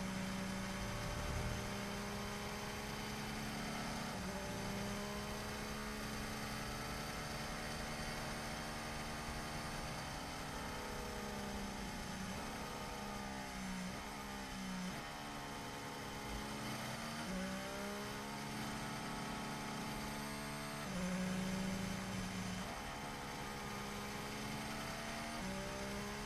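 Mercedes W12 Formula One car's 1.6-litre turbocharged V6 idling, heard through the onboard camera. Its pitch sways up and down in the middle as the revs change.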